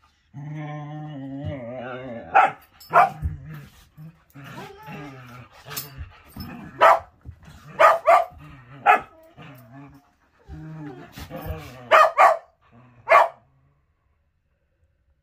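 A whippet and a curly-coated dog play-fighting: long low growls broken by about ten sharp barks that come in twos and threes.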